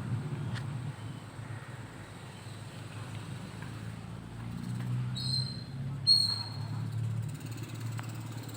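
A motor vehicle engine running nearby, its low rumble swelling and fading, with two short high chirps about five and six seconds in.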